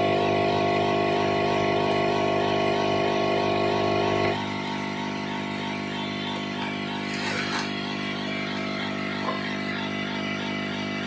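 Background music: a steady drone of held tones that changes to a slightly quieter chord about four seconds in.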